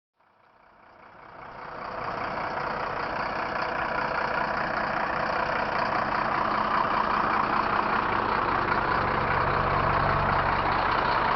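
Diesel engine of a Mercedes-Benz OF 1724 bus running steadily, fading in over the first two seconds, its low rumble getting stronger over the last few seconds.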